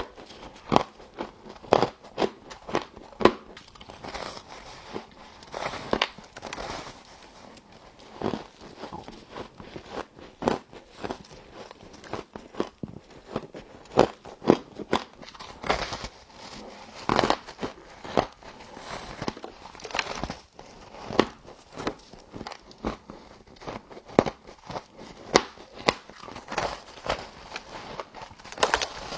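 Close-up biting and chewing of crunchy frost, with irregular sharp crunches and crackles a few times a second.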